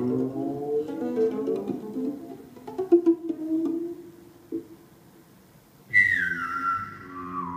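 Guqin plucked in a run of quick notes, then a lower note held and left to ring away. About six seconds in, a loud human whistle through a microphone enters high, slides down and holds, with the guqin under it.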